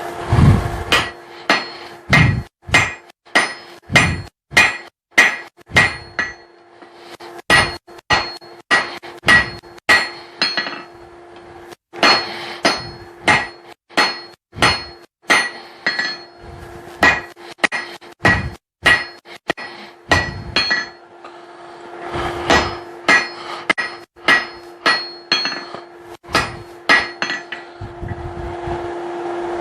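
Hand hammer striking hot steel on an anvil, about two blows a second in runs with short pauses between them, each blow ringing. The smith is drawing out the taper of a hammer eye punch. A steady hum runs underneath.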